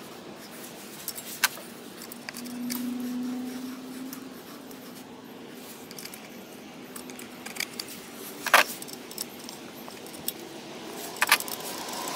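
Light metal clinks and taps of a wrench and the bolts and sheet-metal heat shield on a small Honda engine's exhaust as it is being removed, with a few sharper clinks, the loudest about eight and a half seconds in.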